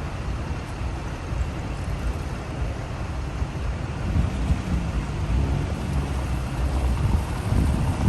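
Car driving on city streets: steady engine and road rumble.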